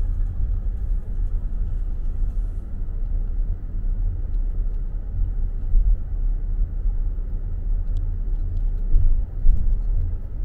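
Steady low rumble of a car driving slowly, heard from inside the cabin: road and engine noise.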